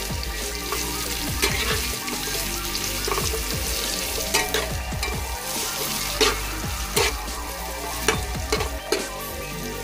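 Sliced bitter melon and garlic sizzling in hot oil in a nonstick frying pan, being stir-fried on its own first because it takes longer to cook than the beef. A flat metal spatula turning the slices clicks and scrapes against the pan every half second to second.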